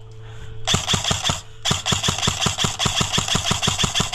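Airsoft electric rifle (AEG) firing on full auto as a rapid, even stream of shots: a short burst about a second in, then after a brief pause a longer burst that carries on to the end.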